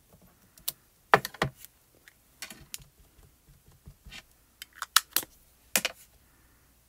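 Sharp plastic clicks and taps from a clear acrylic stamp block and a plastic ink pad case knocking against the work surface and each other as a photopolymer stamp is re-inked. The clicks are irregular, about ten of them, loudest about a second in and again around five to six seconds in.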